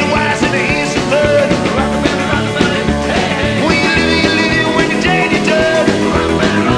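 Rock music from a live band, loud and continuous.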